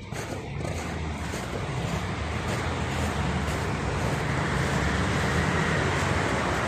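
River water rushing: a steady rush with a low rumble under it, growing louder over the first few seconds and then holding level.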